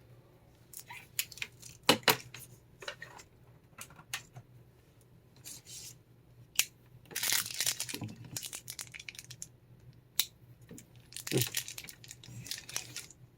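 Handling noise from a clip-on LED desk lamp: scattered clicks and knocks, with two longer rustling, scraping stretches about seven and eleven seconds in.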